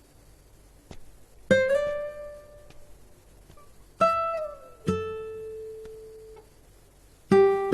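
Slow soundtrack music on a plucked string instrument: four single notes, each left to ring and fade, one of them sliding down in pitch just after it is struck.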